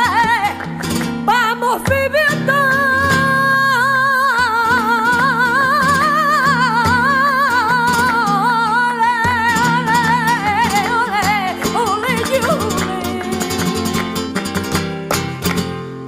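Flamenco song: a singer holds long, wavering lines over plucked acoustic guitar. The music fades near the end.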